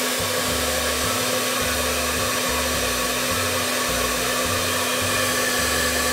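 Hair dryer running steadily as the load on a homemade 60 V pure sine wave inverter: an even rush of blown air with a steady hum beneath it.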